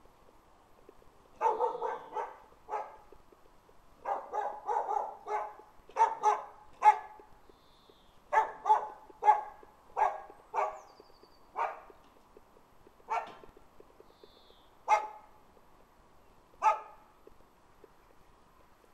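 Keeshond puppies, 38 days old, yapping: quick runs of short barks, then single barks a second or two apart toward the end.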